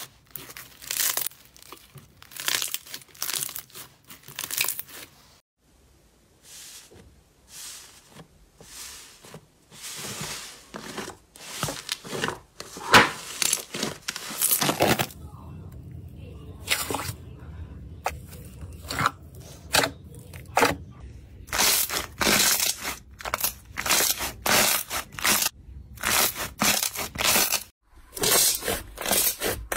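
Hands squeezing, stretching and pressing slime, making repeated crackling, crinkly squishes. About halfway through a low hum enters under the squishes.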